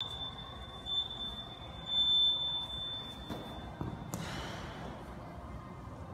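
A high electronic beep tone runs for about four seconds, louder briefly around one and two seconds in, then cuts off. Near the end of the tone comes a thump as a person kicks up into a handstand and their feet hit the wall, followed by a short rustle.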